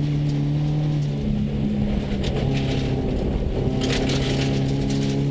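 Subaru rally car heard from inside the cabin, its engine pulling steadily under load as the car gathers speed on a gravel road, over a constant hiss of tyres on gravel. The engine note shifts a little about a second in, and a brief rattle of gravel comes about four seconds in.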